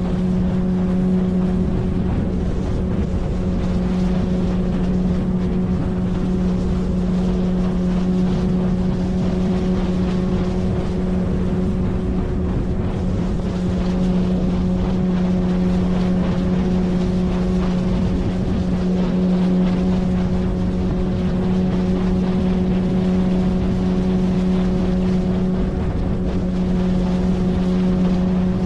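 A 9.8 hp outboard motor pushing an inflatable PVC boat, running at a steady, unchanging speed. The hum sits over a constant rushing noise.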